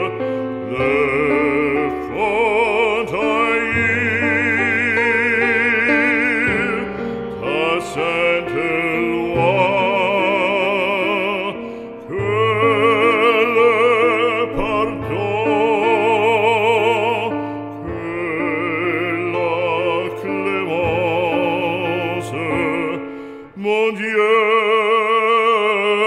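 Background music: an operatic voice singing long held notes with wide vibrato over a sustained accompaniment.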